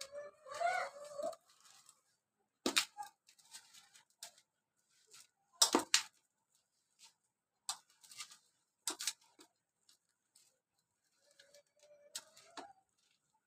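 Glass bangles clinking sharply against a steel mixing bowl every second or two as a hand works sliced onions into gram flour, with soft rustling of the dry mix between the clinks. A short pitched call sounds near the start and again near the end.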